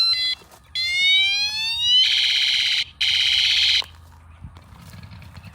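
An electronic siren unit switched through its tones: a brief two-tone blip, a rising wail about a second in, then two short fast warbling bursts, cutting off about four seconds in.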